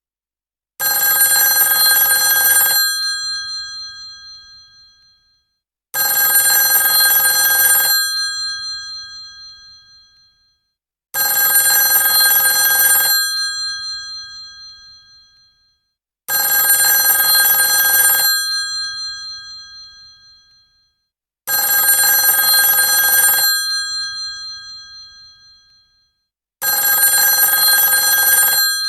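Old telephone's bell ringing: six rings of about two seconds each, roughly five seconds apart, the bell tones dying away after each ring.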